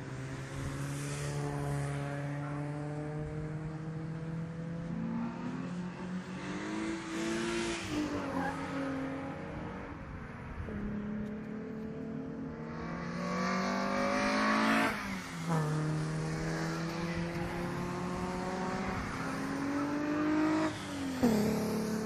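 Alfa Romeo race cars accelerating hard down the track. The engine pitch climbs for several seconds and drops sharply at each upshift, three times over, with the loudest pass about two-thirds of the way in.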